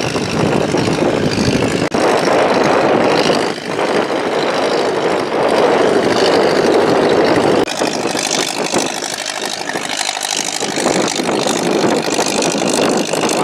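A boat's engine running amid wind and water noise, changing abruptly about two-thirds of the way through as the deepest rumble drops away.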